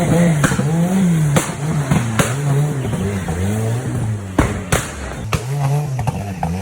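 Off-road competition 4x4's engine revving up and down over and over, its pitch rising and falling about once a second, with sharp knocks and clicks scattered through.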